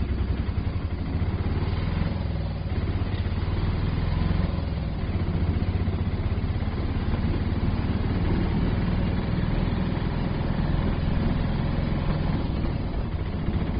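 Auto rickshaw engine running steadily, a fast, even putter of firing pulses.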